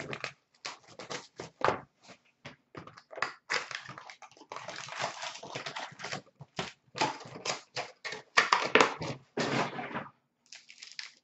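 A sealed box of hockey card packs being opened by hand: plastic wrapper crinkling and tearing, with cardboard and foil packs rustling and tapping in quick irregular bursts.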